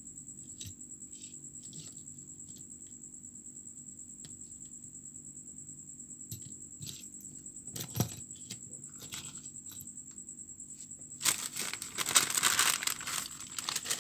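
Small clicks and a sharper knock about eight seconds in as hard plastic fishing lures with metal treble hooks are handled and set down on a wooden table. From about eleven seconds in, a few seconds of loud rustling handling noise.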